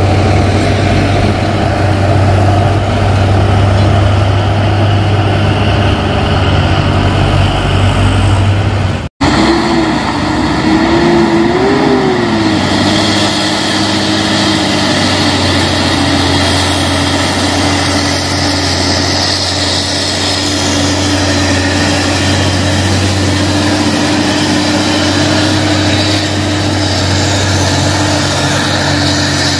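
Diesel engines of loaded Hino 500 trucks pulling up a hill. A heavy low engine drone cuts off suddenly about nine seconds in; then another truck's engine rises and falls in pitch before settling into a steady pull as it comes closer, with tyre hiss growing on the wet road.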